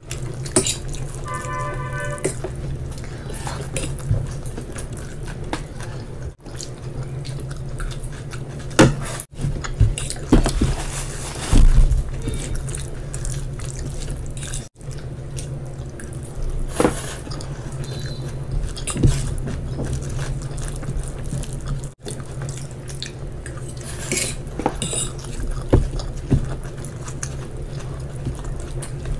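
Close-miked eating: wet chewing and mouth sounds, with a steel fork clicking and scraping on ceramic plates and fingers mixing fried rice. A steady low hum runs underneath.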